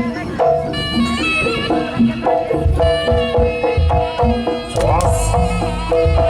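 East Javanese jaranan (kuda lumping) music: hand drums beating a driving rhythm under a wavering, bending melody line, with the drumming growing heavier partway through.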